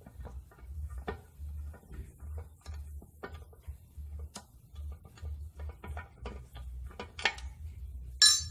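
Small metal clicks and taps of a T-wrench, screws and carburetor parts being handled as a Swingfog SN50 fogging machine's carburetor jet assembly is unscrewed. There is a sharper ringing metallic clink near the end, all over a low steady hum.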